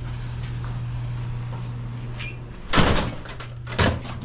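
A door opening and shutting: two loud, sudden clattering sounds about a second apart, over a steady low hum.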